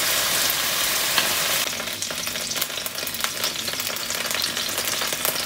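Hot oil sizzling in a pan as fried potato cubes are lifted out with a wooden spoon. From about two seconds in, the steady sizzle turns into scattered crackling and popping.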